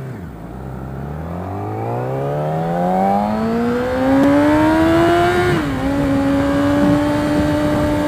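Yamaha R6 inline-four sport bike with an Akrapovic exhaust accelerating hard. The engine note rises steadily for about five seconds, dips briefly about five and a half seconds in, then holds a steady high pitch.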